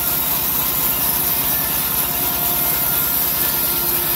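Homemade bandsaw sawmill running steadily, its blade ripping lengthwise through an old teak plank. Under the cutting noise there is a fast, even low pulse from the machine's drive.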